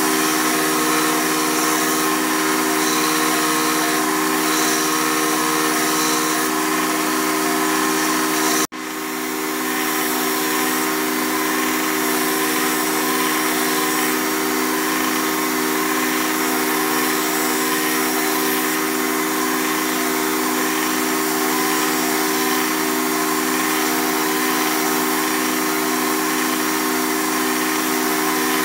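Belt grinder running, its motor giving a steady hum under a hissing grind as a steel dagger blade is held against the abrasive belt. The sound cuts out abruptly for an instant about nine seconds in, then resumes.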